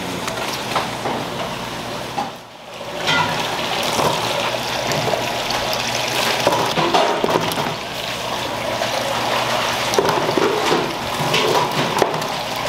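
Water splashing and sloshing at a live-seafood tank: a metal bowl scooping water and a live fish out of the tank and tipping them into a plastic basin, with water pouring into the tank from its inlet pipe. It starts after a brief lull about two and a half seconds in.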